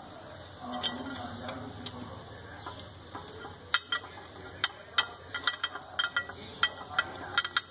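Ratchet wrench clicking while an engine-mount bolt is run in: a quiet start, then from about halfway a string of sharp metallic clicks, two or three a second.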